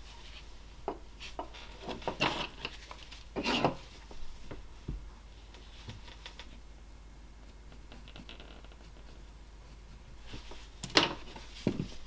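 Carving knife taking short slicing cuts in lime (basswood), a run of brief scraping shaves in the first few seconds and two sharper cuts near the end. In the quiet stretch between, a pencil scratches faintly on the wood.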